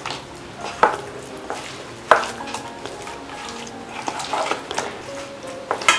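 Fish pieces being mixed by hand with a wet masala paste in a bowl: soft squelching and scraping, with two sharper knocks about one and two seconds in.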